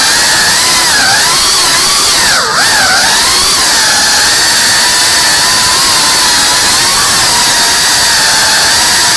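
GEPRC Cinelog cinewhoop's brushless motors and ducted propellers whining in flight, the pitch rising and falling with the throttle, with a brief sharp drop in pitch and level about two and a half seconds in as the throttle is chopped and picked back up.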